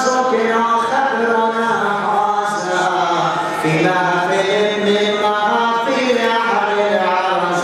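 Male voices chanting a noha, a Shia lamentation, unaccompanied, in long held melodic lines.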